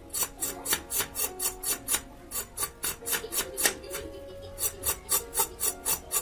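Raw carrot skin being scraped off against the edge of a boti, a fixed curved kitchen blade, in quick repeated strokes about four a second, with a short pause a little past two-thirds of the way through.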